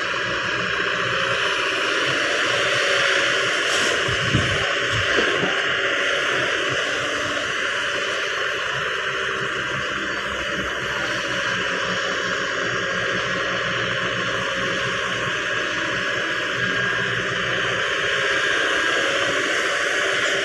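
Kobelco SK200 crawler excavator's diesel engine running steadily under load as it digs and swings, with two short low thumps about four and five seconds in.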